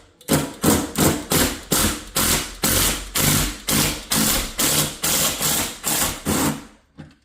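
Electric drill with a large bit boring through a door, run in short even pulses about two and a half times a second, fed slowly. It stops just before the end, as the bit breaks through to the other side.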